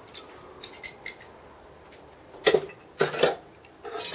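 A few light metal clicks from the bolts of a steel clamping jig being turned. Then, from about two and a half seconds in, several loud ringing clanks of steel plates and hand tools knocking together on a wooden workbench, the loudest near the end.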